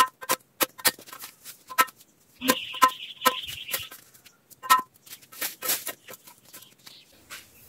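Irregular sharp woody knocks and clacks of cassava stems being handled and knocked together as they are cut and gathered for replanting. A brief rasping noise comes about two and a half seconds in.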